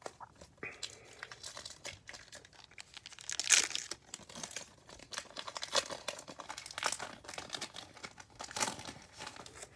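A football trading card pack's wrapper crinkling as it is torn open and handled, with a louder burst of crinkling about a third of the way in and several more sharp crackles later on.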